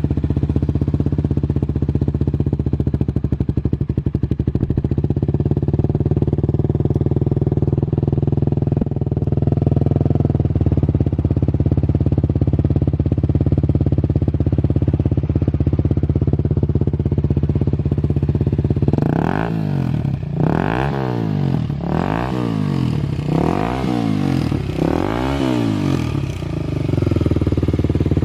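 Suzuki 250SB supermoto's single-cylinder four-stroke engine idling steadily through an aftermarket titanium silencer. About two-thirds of the way through the throttle is blipped five times in quick succession, each rev rising and falling, and the engine then settles back to idle.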